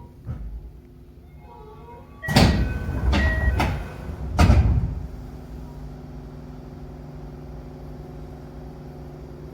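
Sliding doors of a Tokyo Metro 8000 series train car closing: a short door chime and the rumble of the moving panels, then a heavy thud as they shut about four and a half seconds in. After that there is the steady electrical hum of the standing car.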